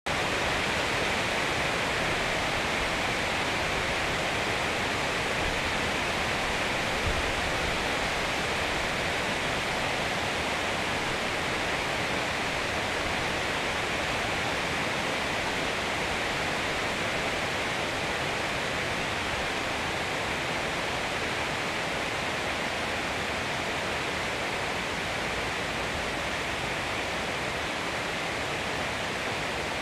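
Strong, heavy rain falling steadily through the forest canopy, a dense even hiss.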